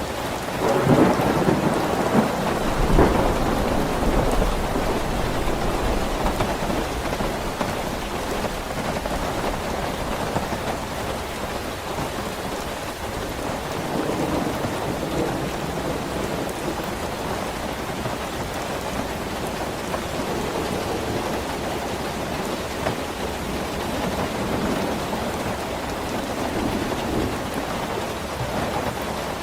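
Steady heavy rain, with a roll of thunder rumbling from about a second in and fading after a few seconds.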